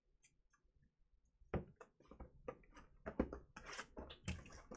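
Near silence for about a second and a half, then a run of sharp knocks and rustling as a sealed box of trading cards is picked up and handled, getting busier toward the end.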